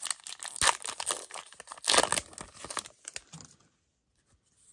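Foil wrapper of a Disney Lorcana booster pack crinkling and tearing as it is ripped open, loudest about two seconds in and stopping after about three and a half seconds.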